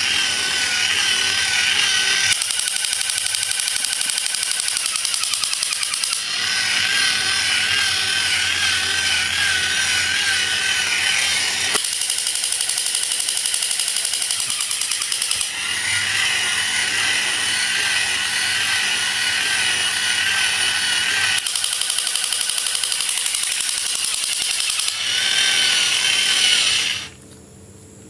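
Continuous mechanical whirring and grinding, like a small motor running, with a wavering high whine. It changes character every few seconds and cuts off suddenly near the end.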